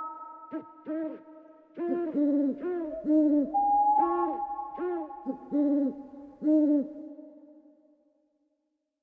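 Owl hooting: a run of short hoots, each rising and falling in pitch, about two a second and sometimes overlapping, over a few steady held tones. The hoots and the tones fade out near the end, leaving silence.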